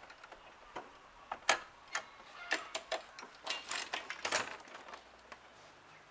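A run of irregular sharp clicks and light metallic knocks, a dozen or so over about three and a half seconds, as a scooter fitted with a side-wheel trike-kit frame is handled and rocked at the handlebars.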